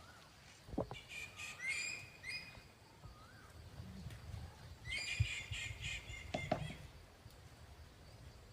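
Parrot calls: a quick series of short calls about a second in, and another series about five seconds in, with a few light knocks between them.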